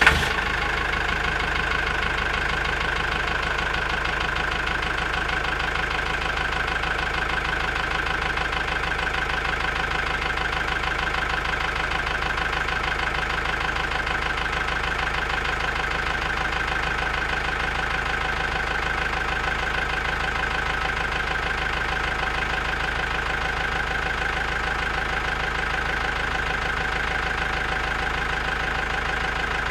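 Small motor of a model mini tractor running steadily with a constant whine, switched on right at the start.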